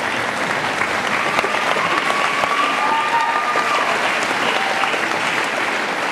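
Large audience applauding steadily. A faint held high tone rises over the clapping for a couple of seconds in the middle.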